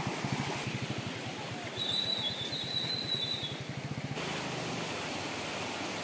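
Small motorcycle engine running at low revs on a rough dirt trail, its firing pulses steady, over the even hiss of a running stream. A thin high tone sounds for about a second and a half near the middle.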